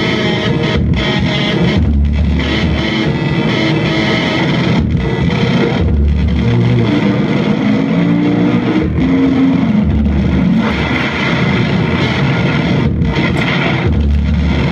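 Loud distorted electric guitar music. A deep low note comes in about every four seconds, each just after a brief dropout in the sound.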